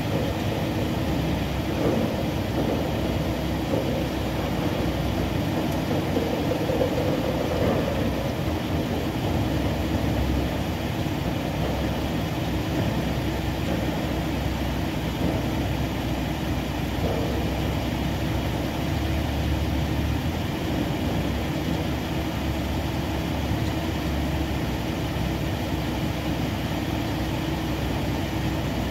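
A diesel engine idling steadily, a continuous low drone that neither rises nor falls.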